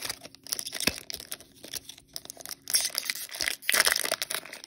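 Foil booster-pack wrapper crinkling and tearing in bursts as it is opened and the cards are pulled out, the loudest burst a little before the end.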